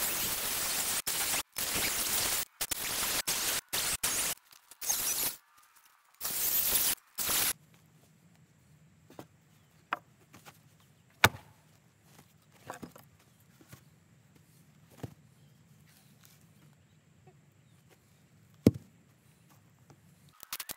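Cordless circular saw cutting through an old hardwood timber beam, heard in several short stretches that start and stop abruptly. After about seven seconds the saw stops, and there are a few sharp wooden knocks and thuds as the heavy timber is handled and set down.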